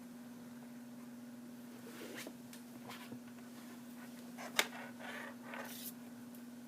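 Faint handling noises, a few brief rustles and scrapes and one sharp click about four and a half seconds in, over a steady low hum.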